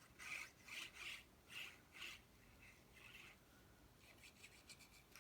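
Faint rubbing of glue being spread on the paper tabs of a pop-up card: about five quick scratchy strokes in the first two seconds, one more about three seconds in, then a few light ticks near the end.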